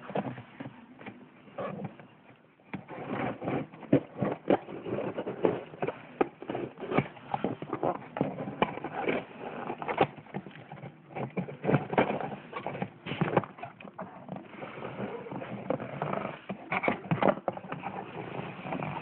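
Cardboard shipping box being handled and opened by hand: irregular knocks, scrapes and rustling of cardboard, with a few sharper thumps.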